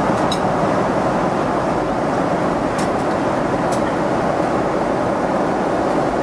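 Steady airliner cabin noise inside a Boeing 777-200: an even roar of engine and airflow, with a few faint clicks.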